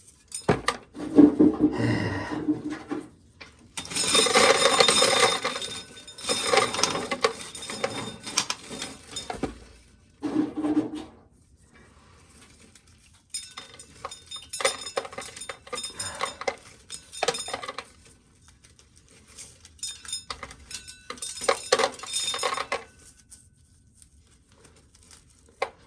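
Dried corn kernels rattling and clinking as ears of corn are shelled in a small corn sheller, coming in several bursts of a few seconds with short pauses between.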